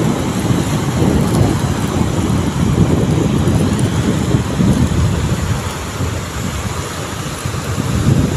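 Wind buffeting the microphone in a loud, fluttering low rumble, over the wash of surf breaking on the reef.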